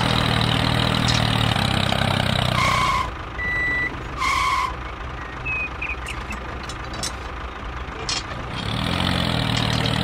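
Tractor engine idling steadily, stopping about three seconds in. Three short electronic reversing beeps follow, then a quieter stretch, and the engine sound comes back near the end.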